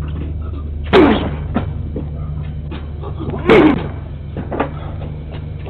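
A man throwing his body against a front door, two heavy slams about two and a half seconds apart, each trailing a short falling tone. Heard through a doorbell camera's narrow-band microphone over a steady low hum.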